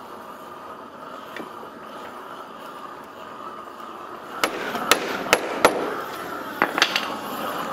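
Gas torch hissing steadily as its flame heats a wet planking strake to make the final bend adjustments. About four and a half seconds in come about six sharp knocks as the clamps holding the bent plank are struck.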